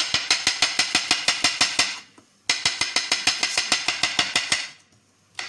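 Kitchen knife chopping fast through a red onion onto a wooden cutting board, a quick even rhythm of about seven knocks a second. It breaks off briefly about two seconds in, resumes, and stops about four and a half seconds in.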